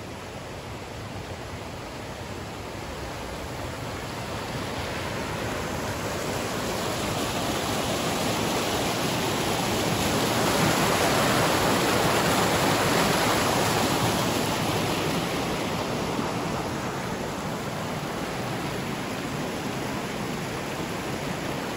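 Mountain creek flowing over rocks, a steady rush that grows louder toward the middle and then eases a little.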